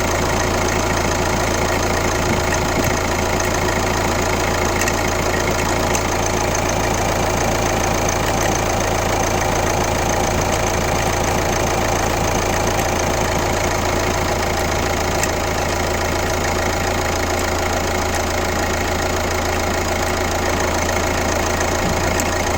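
Kia Ceed 1.6 CRDi's D4FB four-cylinder common-rail diesel idling steadily, carrying the weird engine noise the owner is asking about.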